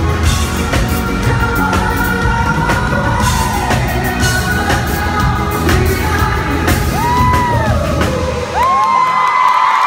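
Male pop-rock singer singing live with a band of drums, bass, guitar and keys, heard from the audience in a large hall. About eight and a half seconds in the drums and bass drop out, leaving the voice held over lighter backing.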